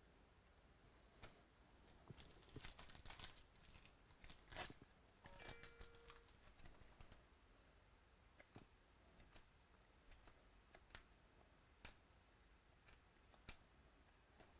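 Faint crinkling and tearing of a foil trading-card pack being opened, mostly between about two and seven seconds in, then sparse soft clicks of cards being handled.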